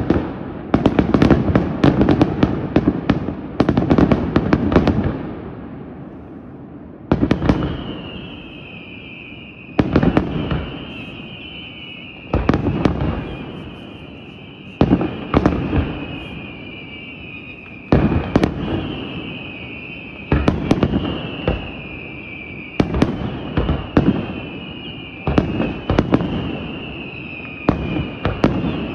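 Aerial fireworks shells bursting. A rapid volley of bangs and crackle fills the first five seconds and dies away. Then single loud bursts follow about every two to three seconds, with a wavering high whine running under them.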